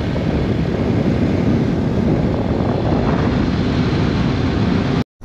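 Steady wind rush on the microphone from a motorcycle riding at speed, heavy in the low end with no clear engine note; it cuts out for a split second near the end.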